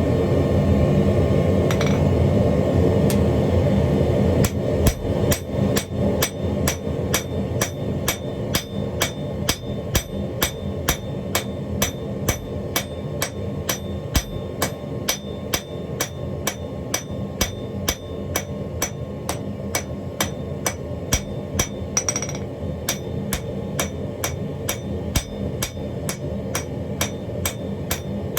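A steady low roar, then from about four seconds in, regular hammer blows at about two a second, forging a chain Damascus billet.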